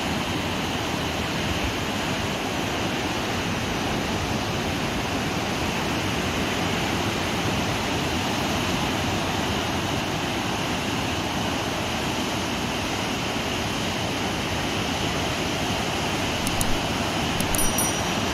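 Steady wash of ocean surf, an even rushing noise with no change through the stretch, with a few faint high ticks near the end.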